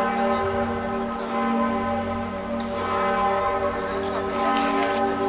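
The Pretiosa, Cologne Cathedral's great bronze bell cast in 1448, swinging and ringing. Its strokes come about every second and a half, each one ringing on under the next.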